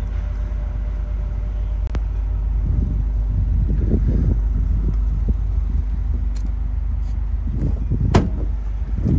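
A 2022 Ford F-150 Raptor's 3.5-litre twin-turbo EcoBoost V6 idling steadily, with a light click about two seconds in and a sharper click about eight seconds in.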